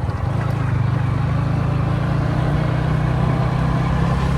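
Yamaha MT-15's 155 cc single-cylinder engine running at a steady, unchanging speed.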